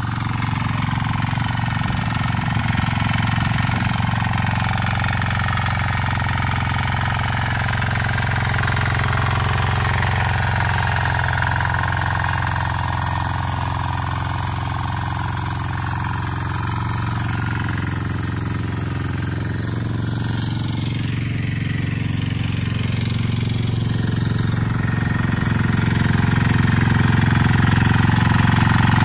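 Trâu Vàng mini tiller's diesel engine running steadily under load as its rotary tines work through wet paddy soil, getting somewhat louder near the end.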